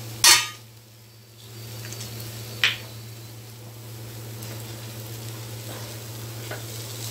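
A metal spoon stirring thick ragi halwa in ghee in a nonstick frying pan, with a low steady sizzle and scraping. The spoon clinks sharply against the pan just after the start and again more softly about two and a half seconds in.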